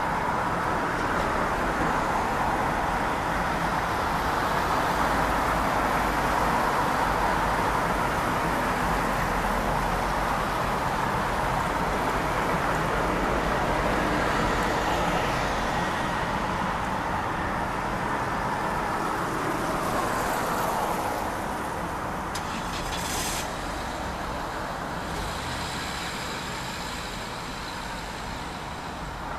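Steady distant engine rumble with no clear pitch, easing off a little after about twenty seconds, with a brief high hiss soon after.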